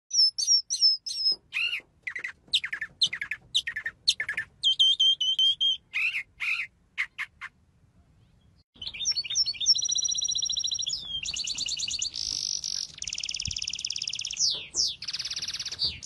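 A mockingbird singing: loud, varied phrases of high sweeping and repeated notes, each phrase different, with short pauses between. From about nine seconds in, a different small songbird sings a fast, continuous, buzzy trilling song.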